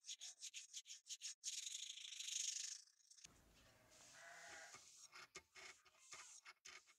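Sandpaper rubbed back and forth in quick strokes along a steel cleaver blade forged from leaf spring, a dry, scratchy hiss. About three seconds in it gives way to softer rubbing as a cloth wipes the blade.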